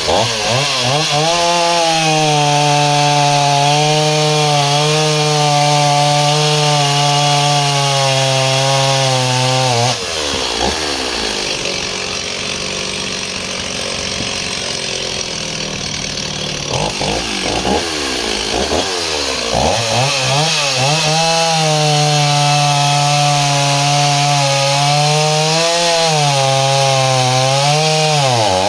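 Two-stroke chainsaw running at full throttle through a log for about ten seconds, dropping back to a lower, unsteady note, then revving up again near twenty seconds and cutting once more, with brief dips in pitch near the end as it takes the load.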